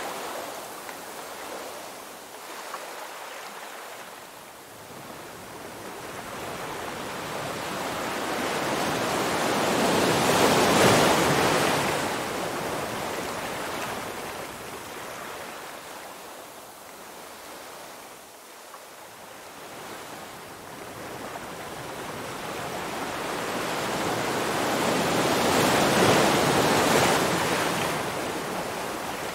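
Ocean surf on a beach: two slow swells of wave noise, each building over several seconds to a peak and then washing away, about fifteen seconds apart.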